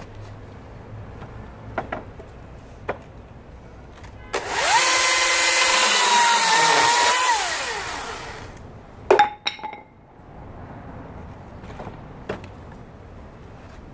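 Husqvarna 36V cordless electric chainsaw spinning up to a steady high whine about four seconds in, dipping slightly in pitch under load as the chain cuts into a wooden pole. It then winds down in falling pitch. A couple of sharp knocks follow about a second later.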